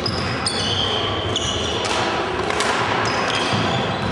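Sports-hall din of badminton play: sneakers squeaking on the wooden court floor in short high squeals, with a couple of sharp racket hits on a shuttlecock about two seconds in.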